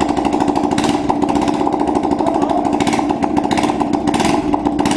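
Suzuki GSR 150i single-cylinder four-stroke engine running loud through a freshly fitted Roncar SS Oval aftermarket exhaust, with several sharp pops as the exhaust spits flame.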